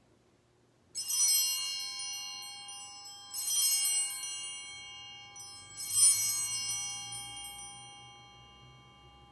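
Altar bells (a cluster of small Sanctus bells) rung three times, about two and a half seconds apart, each ring a bright shimmer of many high tones that fades slowly; the third ring is the loudest. The ringing marks the elevation of the chalice at the consecration.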